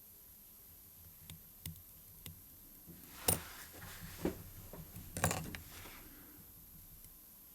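Faint sharp clicks and taps of small watchmaker's hand tools against the watch movement and bench, with two louder clicks about three and five seconds in.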